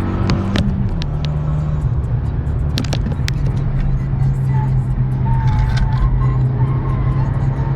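Renault Mégane R26's 2.0-litre turbocharged four-cylinder engine running, heard from inside the cabin. Its note drops in pitch once about a second in, then holds steady. A few sharp clicks sound over it.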